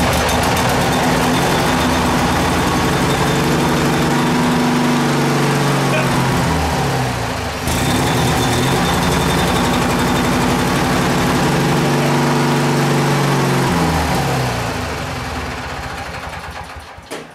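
Briggs & Stratton 18.5 HP lawn tractor engine running on its own for the first time after the conversion. It sags briefly about halfway and picks back up, then slows and dies away over the last few seconds.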